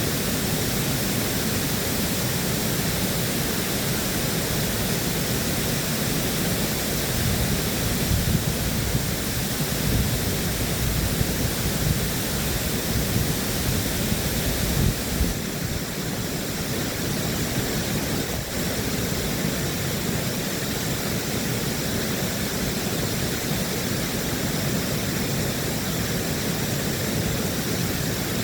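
Water rushing steadily through a dam, a constant even noise with no clear tone in it; the low rumble swells unevenly for several seconds in the middle.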